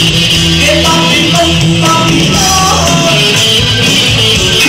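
A live band playing a song loudly, with bass guitar and drum kit under a sung melody.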